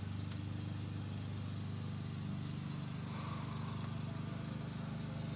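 An engine running steadily at an even speed, a continuous low hum, with a single sharp click about a third of a second in.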